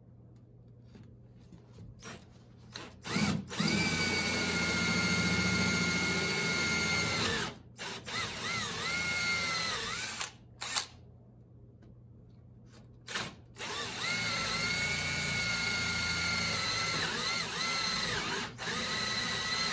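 Cordless drill driving a long bit through a plywood template into a fiberglass boat transom to bore motor-bracket bolt holes. It runs steadily for about four seconds, then in several short trigger bursts with the motor speed dipping, stops, and runs steadily again for the last six seconds.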